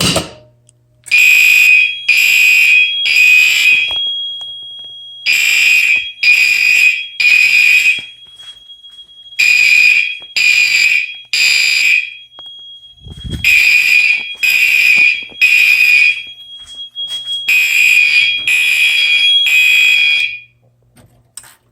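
Gentex Commander fire alarm horns sounding the three-pulse temporal (code-3) evacuation pattern after a manual pull station is pulled: five rounds of three loud pitched blasts, each round followed by a short pause. A faint steady high whine runs underneath, and there is a brief low thump about two-thirds of the way through.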